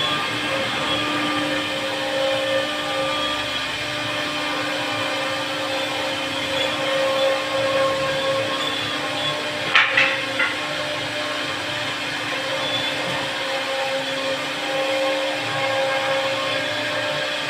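CNC wood router running steadily, a continuous motor whine with cutting noise, and a few sharp knocks about ten seconds in.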